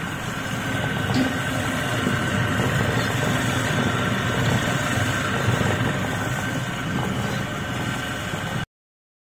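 Electric bilona churn, a small electric motor mounted on a clay pot, running steadily as it spins the churning shaft in curd to make butter. The sound cuts off suddenly near the end.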